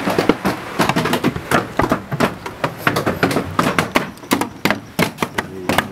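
A child beating out a rhythm with a quick series of sharp percussive hits, unevenly spaced.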